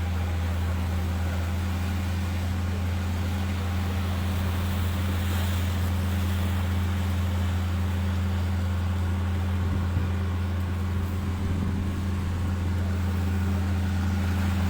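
Heavy machinery: a large engine running at a constant speed, giving a low, unchanging hum.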